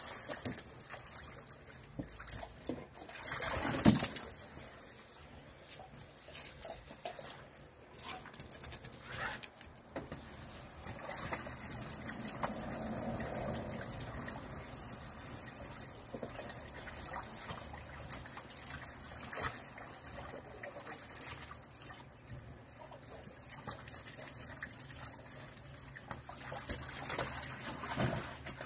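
Water splashing and sloshing as a dog moves and noses about in a shallow plastic kiddie pool, in irregular bouts, with one loud splash about four seconds in.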